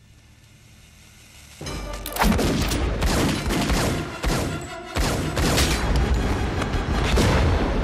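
Pistol gunfire, a dense run of rapid shots, mixed with loud film score music, starting suddenly a little under two seconds in after a quiet stretch.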